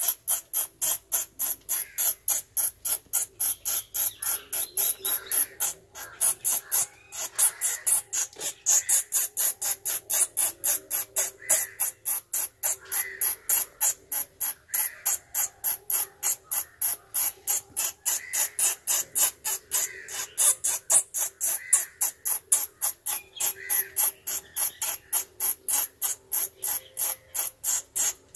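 A captured bat squeaking in distress, a rapid, steady series of shrill high-pitched squeaks at about three a second, with fainter chirps between them.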